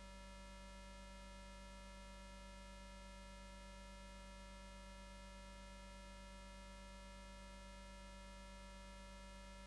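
Near silence apart from a steady electrical hum.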